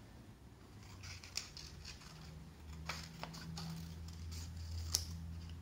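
Scissors cutting a paper cutout, a few faint separate snips over a faint low hum.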